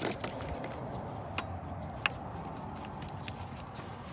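A few sharp clicks and light metallic clinks, near the start and again about one and a half and two seconds in, as a serpentine belt and its spring-loaded tensioner are handled and the belt is worked back over the alternator pulley, with the engine off.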